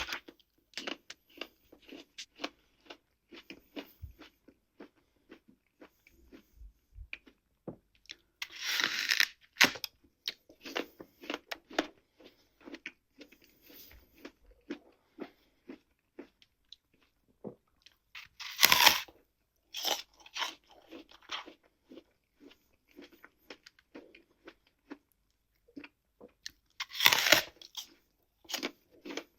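A person eating a fresh, crisp apple: three loud crunching bites about nine seconds apart, with wet, crunchy chewing in short clicks between them.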